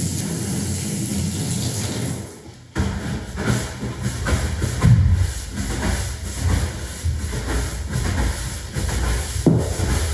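Garden hose spraying water onto the floor of an emptied plastic water tank, a steady hissing splash that stops about two seconds in. Then a push broom scrubbing the wet tank floor in repeated rough strokes.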